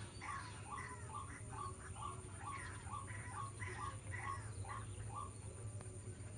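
White-breasted waterhen repeating its harsh two-part call, about two and a half notes a second without a break, over a low steady hum.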